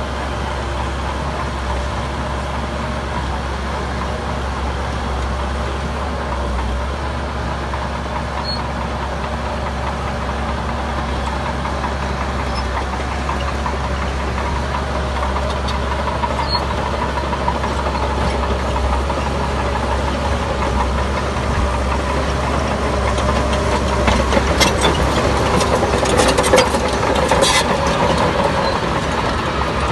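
Heavy diesel engine of earthmoving machinery running steadily under work. A few seconds of sharp clanking and clattering come near the end.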